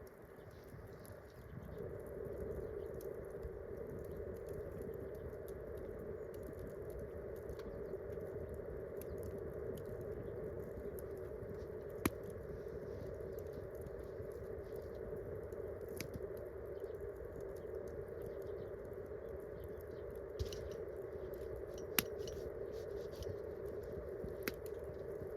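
Wood campfire burning with steady crackling, a stream of small ticks broken by a few sharp pops.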